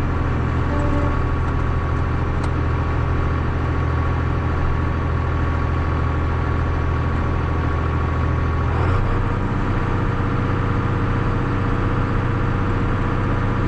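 John Deere farm tractor's diesel engine running steadily under way. About nine seconds in its low note changes abruptly, as with a shift or a change in throttle.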